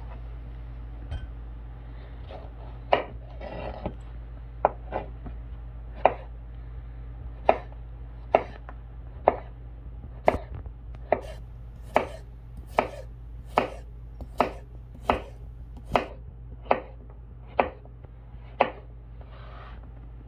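Kensei Fighter fixed-blade knife slicing a zucchini on a cutting board: a series of sharp knocks as each stroke goes through and hits the board, about one a second and closer together in the middle. A brief scrape near the end as the slices are swept together.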